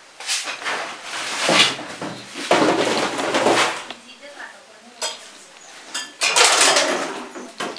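Metal objects clattering and clinking in several separate bouts as things are shifted about in a cluttered storeroom during a search for a snake.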